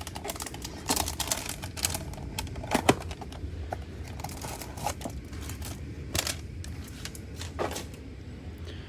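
Trading cards and pack wrappers being handled on a table: scattered light clicks and taps with some rustling.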